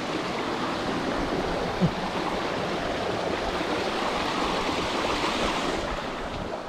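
Steady rush of flowing water from a stream or waterfall, fading near the end, with one brief knock about two seconds in.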